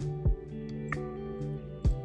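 Background music: held, guitar-like plucked notes with two deep beats.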